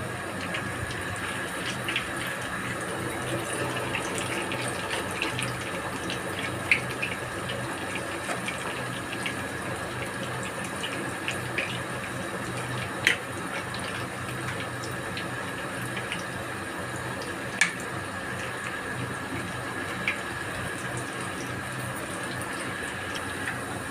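Bakwan (vegetable fritter) batter deep-frying in hot oil in a stainless steel wok: a steady sizzle, with a few sharp clicks scattered through it.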